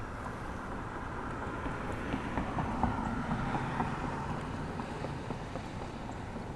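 A vehicle crossing the road bridge, its sound swelling about two seconds in and easing off, over a steady low rumble.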